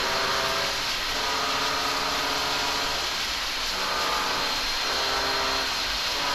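Diesel locomotives running as they pull a freight train through a rail yard, a steady engine sound with shifting pitches.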